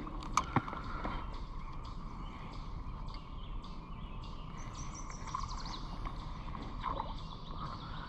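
Steady creek-side outdoor background, with two sharp clicks just under a second in and a brief high bird chirp about five seconds in.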